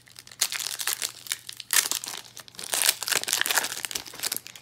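Foil wrapper of a Magic: The Gathering Jumpstart booster pack being torn open and pulled apart by hand, crinkling and crackling throughout, loudest just under two seconds in and again around three seconds in.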